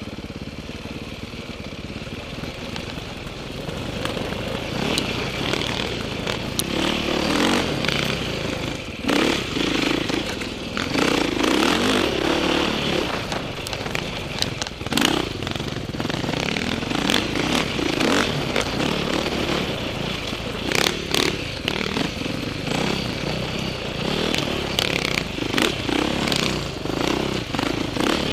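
KTM 530 single-cylinder four-stroke dirt bike engine running under constantly changing throttle on a rough trail, with frequent sharp knocks and rattles from the bike over bumps.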